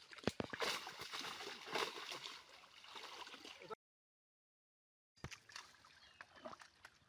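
Water splashing and sloshing, with a few sharp knocks and splashes in the first second or so. The sound cuts out completely for about a second and a half in the middle, then the softer splashing resumes.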